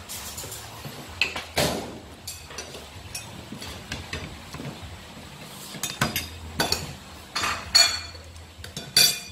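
Metal spoons and ceramic plates clinking and knocking as food is served at the table: scattered sharp clinks, several close together in the later part.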